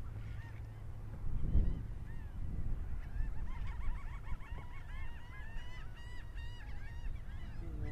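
Gulls calling in a rapid run of short, repeated squawks, mostly in the second half. A dull thump about a second and a half in, over a steady low rumble.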